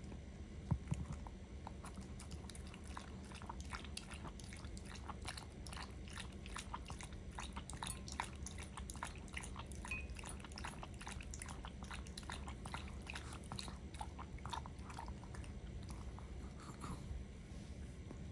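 A long-coat Chihuahua lapping water from a ceramic bowl: a quick run of small wet clicks, several a second, from about three seconds in until near the end. A single sharp knock about a second in.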